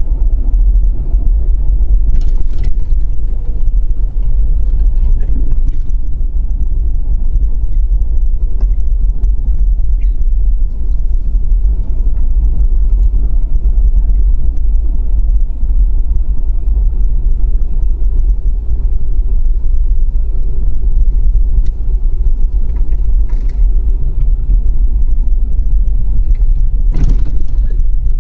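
Loud, steady low rumble with no speech, with a couple of brief fainter rattles about two seconds in and near the end.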